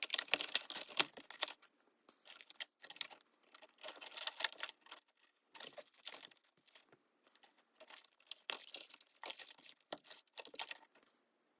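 Stiff insulated house wiring clicking, scraping and rustling against itself and the wall box as the bundled wires are pulled apart, in irregular bursts with short pauses.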